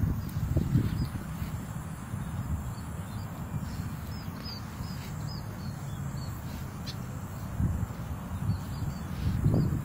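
Faint, high, short falling bird chirps, clustered around the middle, over a steady low rumble on the phone's microphone that swells near the start and again near the end.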